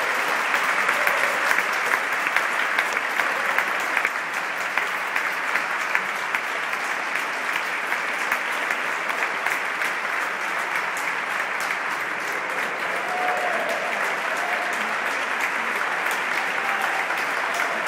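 A large audience applauding, a dense, steady clapping that is slightly fuller in the first few seconds.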